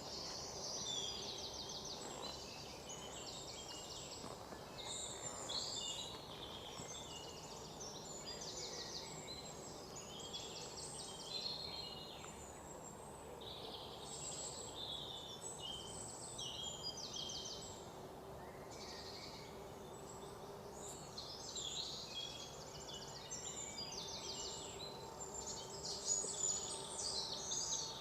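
Many birds chirping and trilling together in a forest morning chorus, the calls overlapping almost constantly, over a steady low background hiss.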